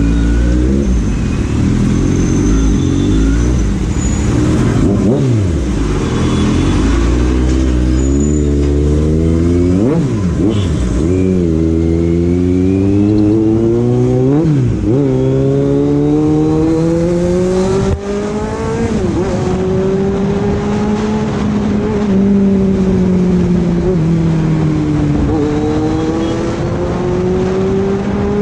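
Kawasaki Z900's inline-four engine heard from the rider's seat, accelerating through the gears. The revs climb and drop sharply at each shift, about three times in the first fifteen seconds, then rise steadily over a longer pull, ease off briefly near the end and climb again.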